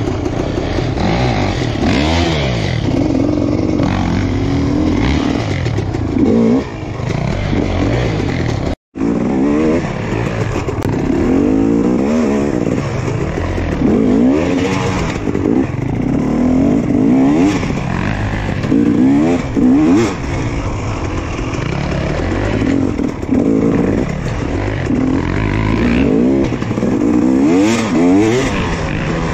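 Dirt bike engines revving up and down over and over, the throttle opened and closed every second or two as the bikes work over logs and along a forest trail. The sound cuts out for an instant about nine seconds in.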